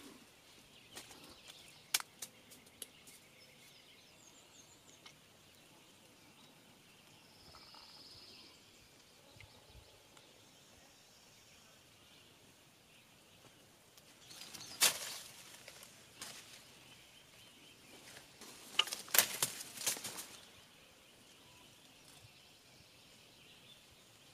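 Quiet outdoor ambience with a faint bird call, broken twice by a second or two of rustling: once a little past halfway and again about three quarters through.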